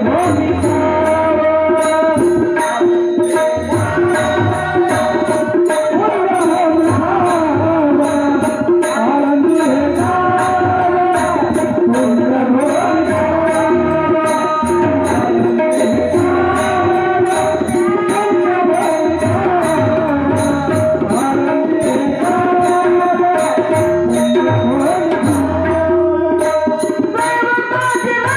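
Marathi abhang bhajan music: a tabla beat and small hand cymbals clicking in a steady rhythm under a sustained, wavering melody line.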